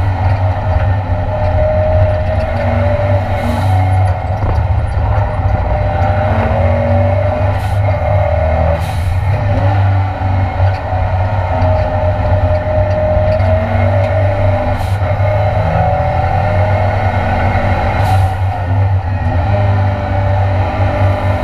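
Ford Escort Mk2 race car's Cosworth engine heard from inside the stripped cabin, running hard with its pitch rising and falling through gear changes and corners. A handful of brief sharp cracks cut through it.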